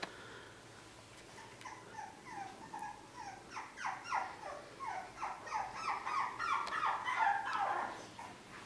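Boston terrier puppy whimpering and yipping during play: a long run of short, high calls, each falling in pitch, coming faster and louder until shortly before the end.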